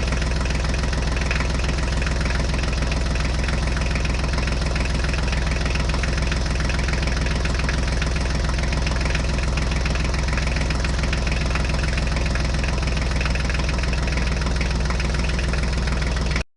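Tractor engine running at a steady idle with a fast, even firing beat, cutting off suddenly near the end.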